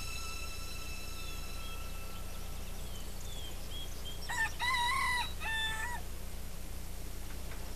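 A rooster crows once, about four seconds in, a two-part call lasting under two seconds. Faint chirps of small birds come before it over a steady low hum.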